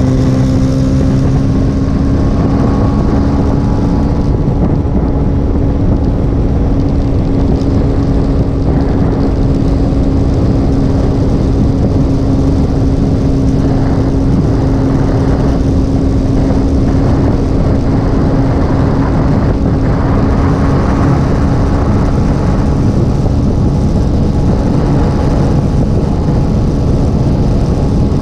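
Motorcycle cruising at a steady highway speed: the engine holds one steady pitch under a heavy rush of wind over the microphone.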